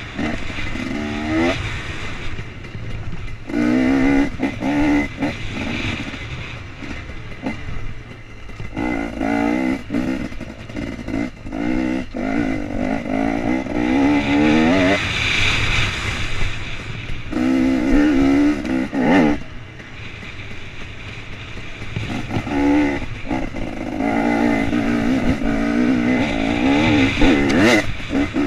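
2016 KTM 250 EXC two-stroke single-cylinder engine revving in repeated bursts as the throttle is opened and closed while riding, the pitch rising through each burst and dropping back between them. Sharp knocks from the bike over rough ground now and then.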